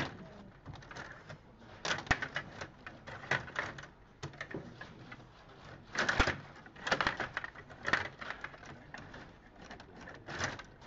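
Stiga Play Off rod table hockey game in play: plastic players spun and slid on their metal rods, with the puck knocking off sticks and boards in irregular clusters of sharp clicks and clatter, the loudest about six seconds in.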